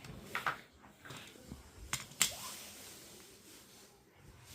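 A few light clicks and taps of small tools and plastic parts being handled while a laptop's cooling fan is taken apart: two soft clicks about half a second in, then two sharper clicks around two seconds in.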